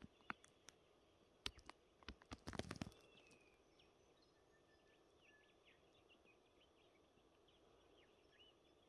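A quick run of sharp clicks and knocks close to the microphone in the first three seconds, then faint small-bird chirps over a quiet background.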